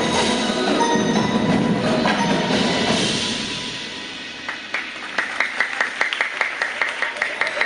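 Indoor drumline with marching drums and mallet keyboards playing together, fading down about four seconds in, then a run of sharp, high-pitched taps at about five a second.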